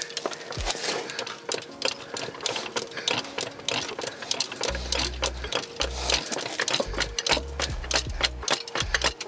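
Rapid, irregular clicks and knocks from work on a truck's rear axle and floor jack as the axle is shifted into line with the leaf spring hole, with low thumping rumbles from about halfway through.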